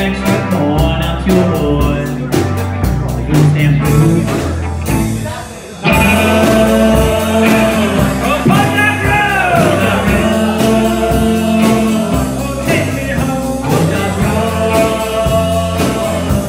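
Live rock band playing: electric guitars and drums with a male singer. About five seconds in the drums and cymbals drop out briefly, and the full band comes back in about a second later.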